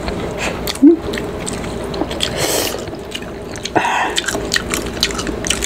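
Close-miked wet eating sounds: fingers lifting boiled cabbage and pork out of soup broth, with drips, squishes and small mouth clicks and smacks. A short loud mouth sound comes about a second in.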